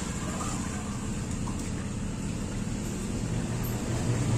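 Steady low rumble of background noise, growing louder near the end.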